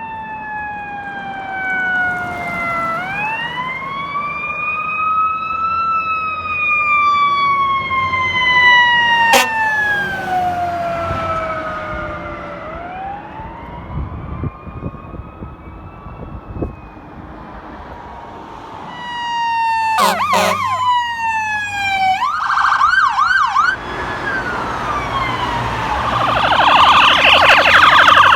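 Fire engine siren on an emergency run, first in a slow rising-and-falling wail, then switching about twenty seconds in to fast yelp and warble tones, growing louder toward the end.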